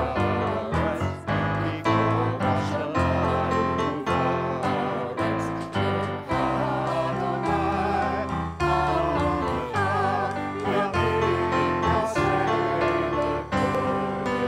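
Piano music: struck chords and a melody, with a wavering melody line above them.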